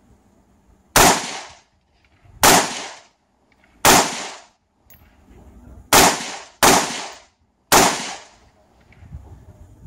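Six semi-automatic rifle shots, each a sharp crack that dies away over about half a second. The first three come about a second and a half apart, then three more follow in quicker succession.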